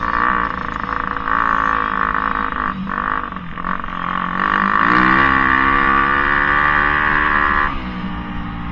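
Dirt bike engine running under way. The revs climb about four seconds in as it accelerates down a straight, hold high, then drop near the end as it slows for a turn.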